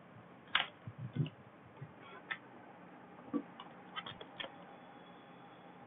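A few faint, scattered computer mouse clicks, with a quick cluster of three about four seconds in.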